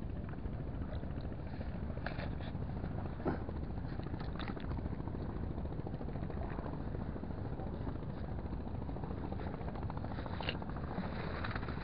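Wind buffeting the microphone: a steady low rumble, with a few faint clicks during handling of the spinning rod and reel.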